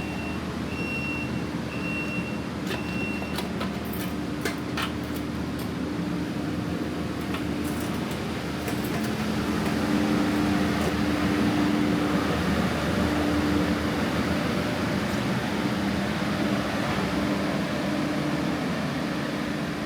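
A vehicle engine running steadily. A short series of evenly spaced electronic beeps sounds during the first few seconds.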